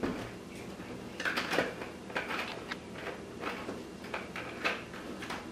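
Scattered soft knocks, taps and rustles as baking things are handled in a kitchen.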